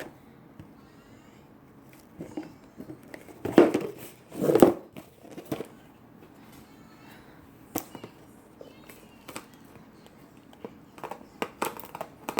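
Packaging being handled and torn open: scattered crinkles and clicks, with two louder, longer rustles about three and a half and four and a half seconds in.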